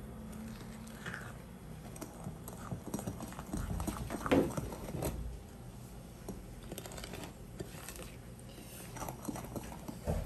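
Wooden spoon stirring a wet coconut batter in a glass bowl, with light irregular clicks and knocks of the spoon against the glass, the loudest about four seconds in, over a faint steady hum.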